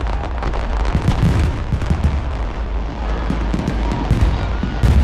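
Aerial fireworks going off: a dense run of bangs and crackles over a constant low rumble.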